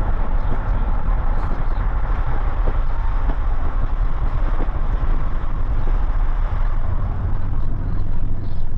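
A vehicle driving, giving a steady low rumble of engine and road noise.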